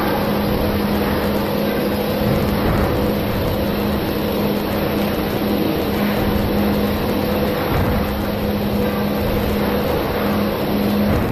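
A CNC gantry drilling and milling machine running, a steady mechanical drone with a constant hum.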